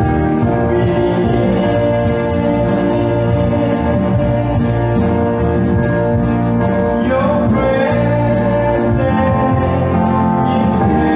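A man singing a gospel song solo, amplified through a microphone, over steady instrumental accompaniment.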